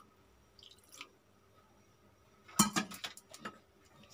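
A short clatter of kitchenware about two and a half seconds in: several quick sharp knocks within about a second, after a couple of faint clicks.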